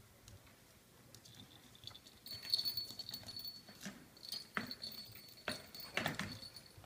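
Four-week-old puppies scuffling and pattering about as they play, with a few short sharp knocks and scrabbles. A steady high-pitched tone runs underneath from about a second in.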